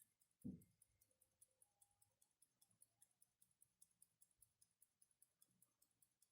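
IWC pocket watch ticking faintly and evenly at about five ticks a second, with a soft thump about half a second in.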